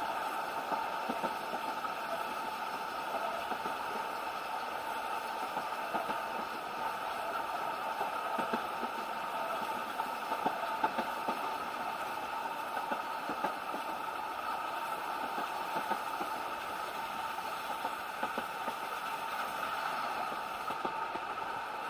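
Isle of Man Steam Railway narrow-gauge carriage running along the line, heard from inside: a steady running noise from the wheels on the rails, with many small clicks and knocks.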